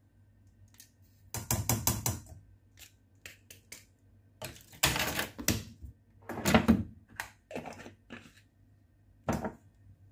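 Plastic measuring spoon clicking and tapping against a baking powder can: rapid clatters in several short bursts, the loudest about a second and a half in and about five seconds in, then a few single taps.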